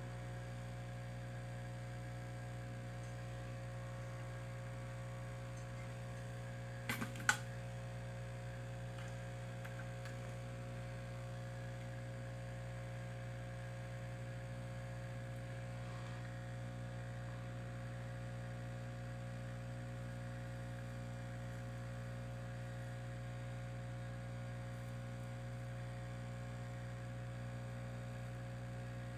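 Steady electrical hum, with two or three sharp clicks close together about seven seconds in.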